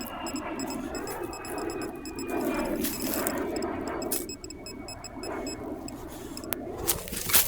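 Electronic metal detector signal: rapid, evenly repeated high-pitched pips with a faint tone sliding slowly downward in the first half, over a steady low rustling noise. A sharp click comes near the end.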